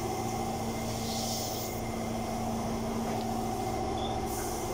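An engine idling steadily, a constant low hum with a few held tones. A short hiss is heard about a second in.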